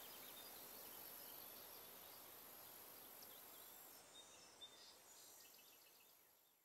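Near silence: faint outdoor ambience with a steady hiss and scattered faint bird chirps. A thin high whine in the background stops about four seconds in.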